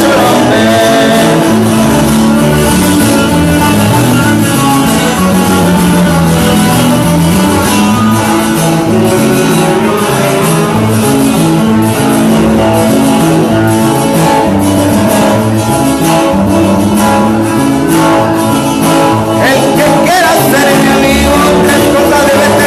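Music: a band playing a song with plucked guitar, a walking bass line and singing.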